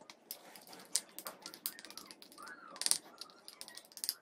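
A utensil clicking and scraping irregularly against a small bowl while stirring dry ginger powder, rock salt and sesame oil into a thick paste.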